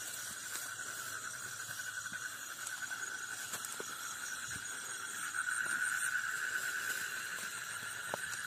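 Crickets trilling in grass: a steady, fast-pulsing trill that swells louder for a second or two around the middle, with fainter higher-pitched insect chirping above it. A few faint knocks of a spade in soil, one near the end.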